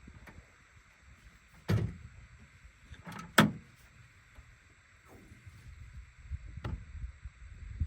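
A few separate knocks and clunks, like handling gear or a door or latch; the loudest is a double knock about three and a half seconds in.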